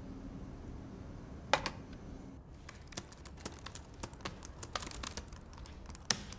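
Typing on a computer keyboard: a run of irregular key clicks, beginning about one and a half seconds in and going on almost to the end.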